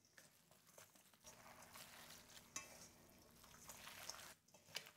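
Faint wet squishing and crackling of hands kneading a raw ground pork and beef meatball mixture in a stainless steel bowl. It stops a little before the end.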